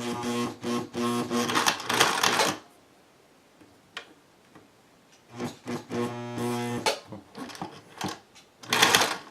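Singer Touch and Sew sewing machine stitching in two runs, its motor humming under the rapid clatter of the needle mechanism: one run of about two and a half seconds, then a shorter one after a pause, with a few clicks and a sharp clatter near the end.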